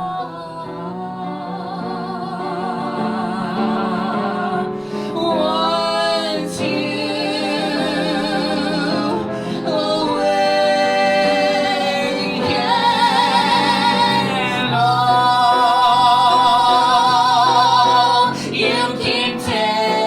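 Musical-theatre song performed live: a woman's voice sings long, held notes with strong vibrato over a steady accompaniment, building louder to a peak and breaking off about eighteen seconds in.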